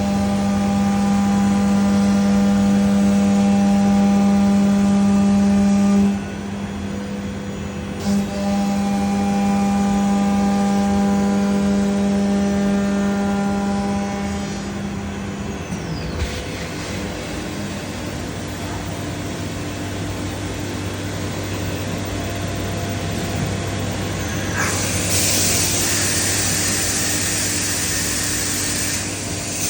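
Spindle of a Biesse Rover K CNC router running with a steady high whine, broken by a short dip about six seconds in, then winding down with a falling pitch about halfway through, leaving a steady machine hum. Near the end a loud hiss of air starts.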